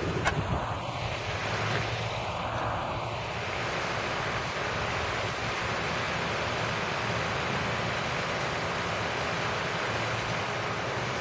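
Lake fountain's pump pushing water up to the fountainhead, a steady rush of churning water before the jet starts.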